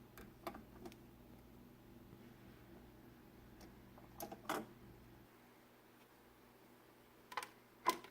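Faint clicks and light knocks of a Technics SL-D2 turntable being handled, over a low steady hum that drops away about five seconds in.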